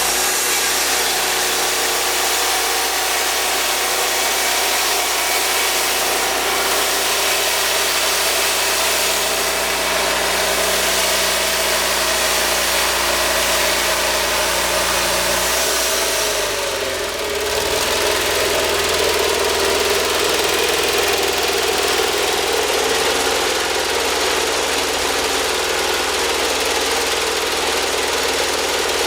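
Wood-Mizer portable band sawmill's engine running steadily. About sixteen seconds in, its pitch slides down and settles lower.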